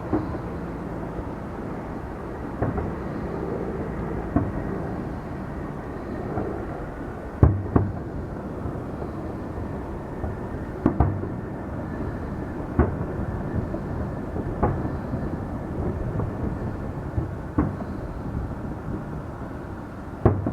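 Fireworks going off: about a dozen sharp bangs at uneven gaps, some in quick pairs, over a steady low rumble.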